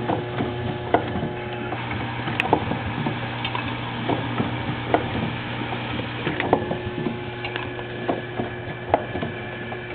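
Automated vial filling machine running: a steady hum under irregular sharp clicks and clacks from its moving parts, roughly one a second.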